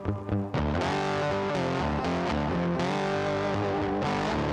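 Outro music with a distorted electric guitar playing gliding, bent notes; it briefly breaks up in the first half second.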